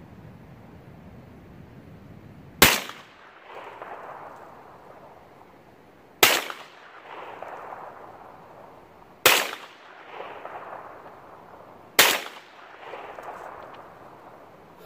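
Four single shots from a carbine, about three seconds apart, each followed by an echo rolling back and fading over about a second.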